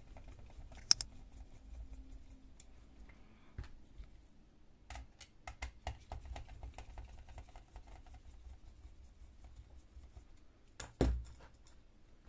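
A screwdriver turning out small screws from a printer fuser unit's plastic frame: faint scratching and light clicks, with a sharp click about a second in and a louder knock near the end.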